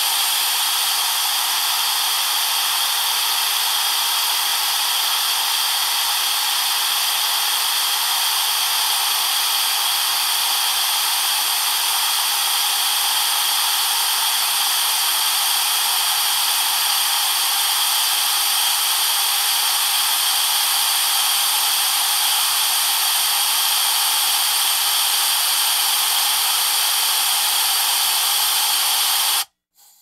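Compressed air escaping in a loud, steady hiss with a few whistle-like tones in it, cutting off abruptly near the end.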